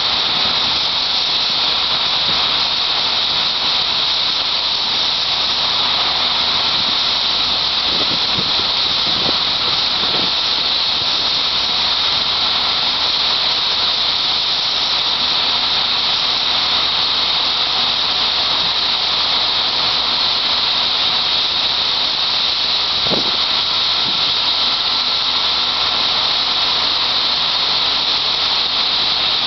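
Shelled corn pouring from a Blazer 1325 grain cart's unloading auger into a Loftness grain bag loader: a steady, loud rushing hiss with a faint steady whine over the low run of tractor engines.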